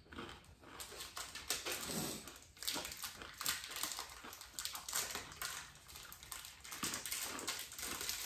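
Plastic candy-bar wrapper crinkling and tearing as it is opened, in short irregular rustles.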